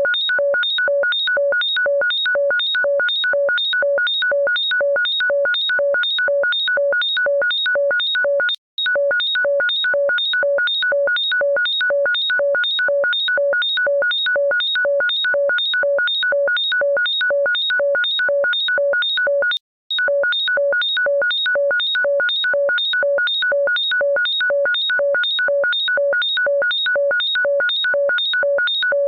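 Shrill electronic ring tone: a rapid beeping, each beep several high tones at once, repeating evenly about three times a second. It breaks off for an instant about nine seconds in and again about twenty seconds in, then carries on.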